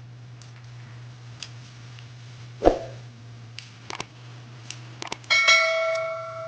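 Eating-table sounds: small scattered clicks, a sharp knock a little before halfway, then a bright ringing clink near the end that fades away over about a second, like tableware struck against a plate or glass. A steady low electrical hum runs underneath.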